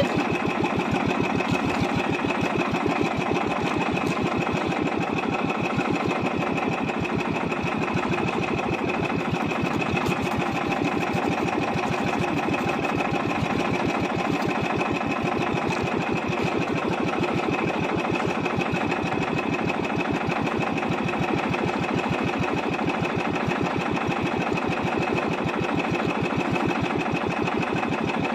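Small engine of an outrigger fishing boat running steadily at an even speed, a fast regular putter.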